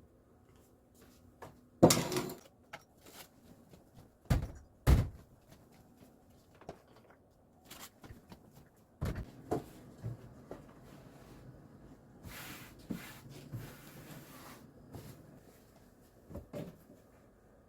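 Household knocks and thuds: one sharp knock about two seconds in, two more a half second apart a couple of seconds later, then lighter clicks and a brief rustling stretch.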